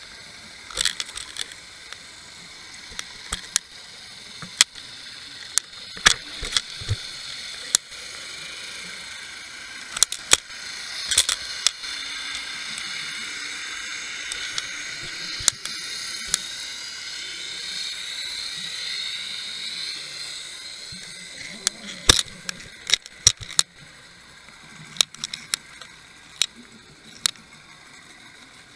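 Underwater audio from a camera rig drifting over sandy bottom: scattered sharp clicks and knocks, over a hiss that swells for about ten seconds in the middle with faint sliding whines in it.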